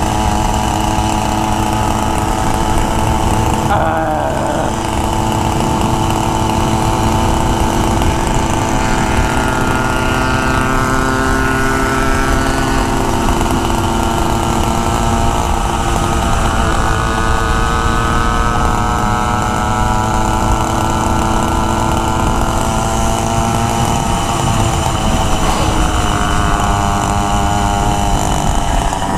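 Small single-cylinder engine of a motorized bike running under way, its pitch rising and falling several times as the rider works the throttle, over a constant low rumble of wind and road noise on a helmet-mounted camera.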